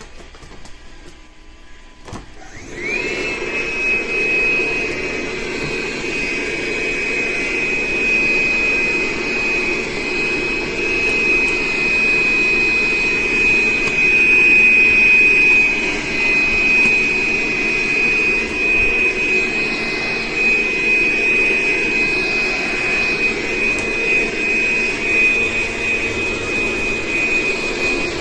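Vacuum cleaner switched on about two and a half seconds in: its motor whine rises quickly to a steady high pitch, then runs on evenly.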